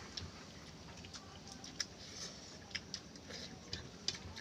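Eating sounds: scattered small clicks and smacks of food being chewed and worked by hand on a plate.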